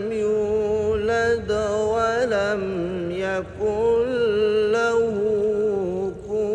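A man reciting the Quran in melodic tajweed style (tilawat): long held notes with ornamented turns in pitch. He breaks briefly for breath about three and a half seconds in and again near the end.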